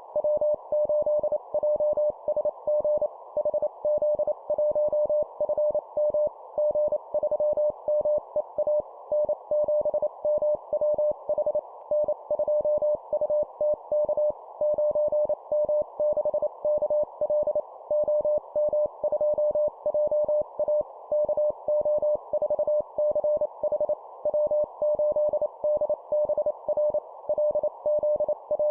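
Morse code (CW) sent at 25 words per minute: a single steady beep keyed on and off in fast dots and dashes, spelling out amateur radio call signs with short pauses between them, over a continuous band of hiss.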